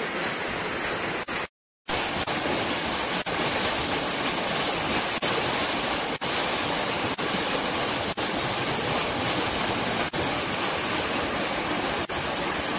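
Whitewater of a small stream cascading over rocks, a loud, steady rush. It cuts out briefly to silence about a second and a half in.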